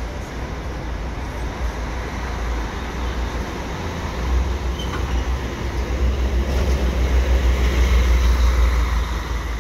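Busscar intercity coach driving slowly past at close range, its diesel engine's low rumble growing louder as it comes by and loudest near the end.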